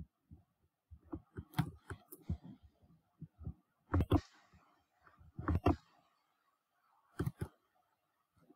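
Scattered clicks and clacks of a computer mouse and keyboard, coming in small clusters and pairs a second or two apart.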